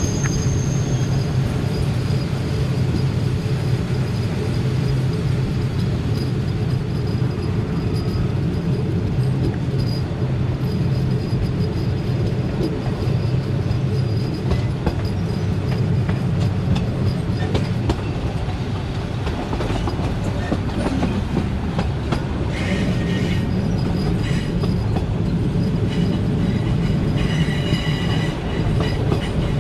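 Passenger train running at speed, heard from an open carriage window: a steady rumble of wheels on rail with scattered clicks. Brief high wheel squeals come twice in the last third, as the train rounds a curve.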